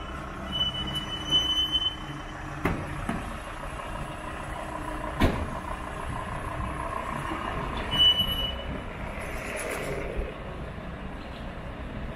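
City street traffic: vehicles running past, with a short high steady tone twice and two sharp knocks.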